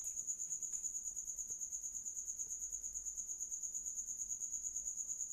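A high-pitched trill in the background, one steady tone pulsing rapidly and evenly, with faint room noise beneath it.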